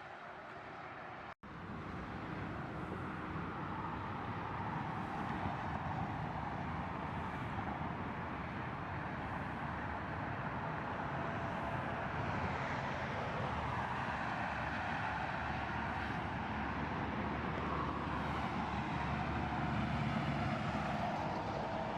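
Steady vehicle traffic noise: engines and tyres on the road. It cuts out for an instant about a second and a half in, then comes back and grows a little louder.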